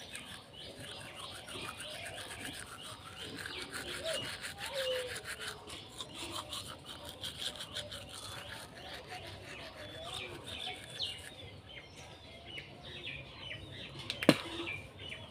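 Manual toothbrush scrubbing teeth through foam, with fast back-and-forth bristle strokes in a rapid rasping rhythm that thins out about eleven seconds in. A single sharp knock near the end.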